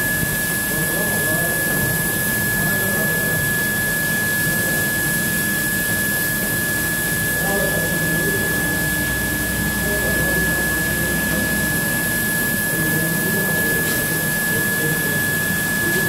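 Automatic carpet washing machine running steadily with a carpet feeding through its rollers and brushes: an even motor drone with a constant high-pitched whine over it.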